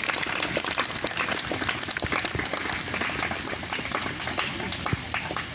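Audience applauding, many hands clapping steadily and unevenly.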